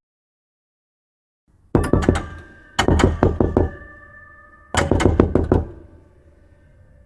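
Knuckles knocking on a door in three groups of quick raps, each group of three to six knocks, starting after a short silence. A faint steady ringing lingers under and after the knocks.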